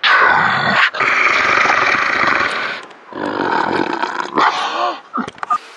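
A man growling and snarling like an animal close to the microphone: three long raspy growls, the middle one the longest, with a few short grunts near the end.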